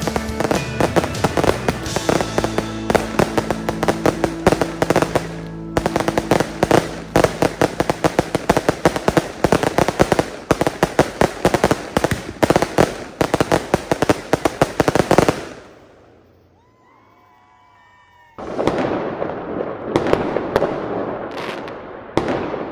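Fireworks display firing a rapid, dense barrage of shell bursts and crackling reports, with background music under it at first. The barrage stops abruptly about 15 seconds in, leaving a short lull, and a second rapid barrage starts a few seconds later.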